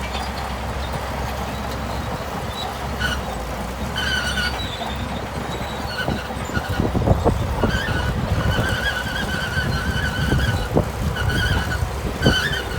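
Shantui bulldozer's diesel engine running low and steady while its steel tracks squeal in repeated high-pitched bursts. The squeals come more often and last longer after a few seconds, joined by short clanks from the undercarriage.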